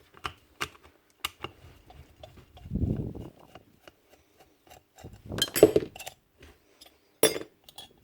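Small metal parts and a hand tool clicking and clinking as the reed valve strap is taken off a Paslode IM350+ nail gun, with a dull bump about three seconds in and a louder clatter of clinks near the end.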